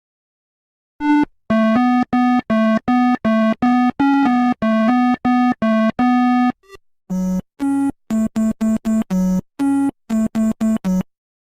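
Synthesizer beeps: a rapid run of short, evenly pitched electronic notes, about three a second, then after a brief break a second run of shorter, buzzier notes. It is an electronic rendition of a green woodpecker's call.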